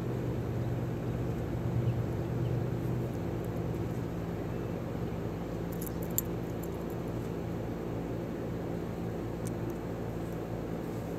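A steady low mechanical hum from an unseen motor, with a few small metallic clicks about six seconds in and again near the end as the watch's steel mesh bracelet is handled.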